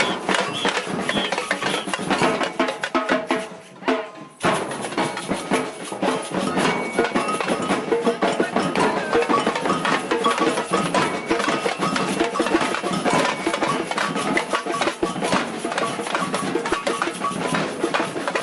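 Batucada samba drum ensemble playing a fast, dense groove of drums and wooden-sounding percussion. About four seconds in it breaks off for about a second, then comes back in together at full strength.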